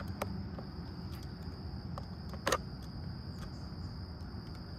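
Outdoor ambience: a steady high-pitched insect drone over a low rumble, with a few scattered clicks, the loudest about two and a half seconds in.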